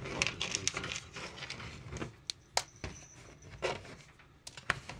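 Irregular light clicks, taps and small rattles of things being handled in and around a cat cage, with a brief faint high tone about three seconds in.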